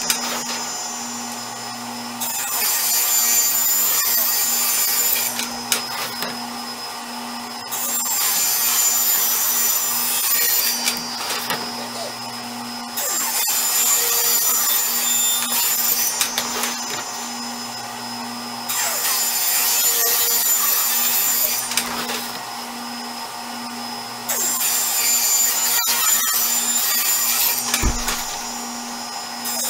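Ridgid R4520 table saw running steadily with a shop vacuum drawing dust, ripping plywood in repeated passes. About five times, a few seconds of sharper hiss come as the blade cuts through the sheet, and between cuts the motor and vacuum hum on. A brief low thump near the end.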